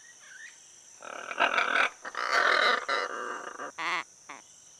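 Great green macaws giving harsh, raucous squawks at the nest cavity: a burst about a second in, a longer run of calls over the next two seconds, then two short calls near the end.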